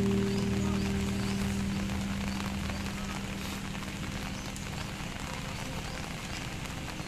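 Steady hiss of rain falling on a wet, flooded road. A held low chord of background music fades out over the first two seconds or so.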